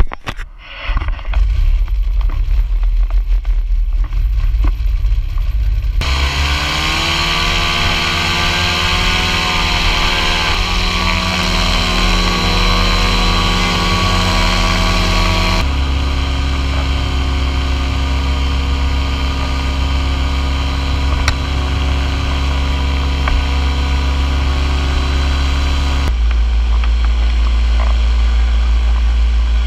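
Tandem paramotor engine and propeller: a low rumble, then throttled up about six seconds in, its pitch climbing for several seconds before settling into a steady full-power drone for the take-off and climb. The tone jumps abruptly twice, and a low rumble of wind on the microphone runs underneath.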